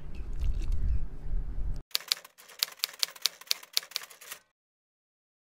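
Typewriter key clacks added as a sound effect to an on-screen title typing out: a quick, even run of sharp clicks, about six a second, lasting a couple of seconds. Before it, after an abrupt cut, there is a low outdoor rumble.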